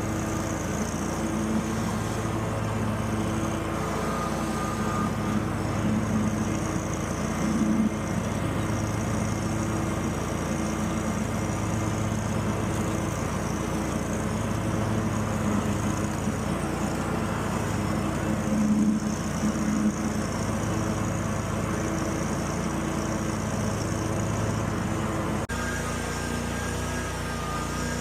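Hustler Raptor X42 zero-turn mower's engine running steadily during a test run after a repair, its note rising and easing a little with load.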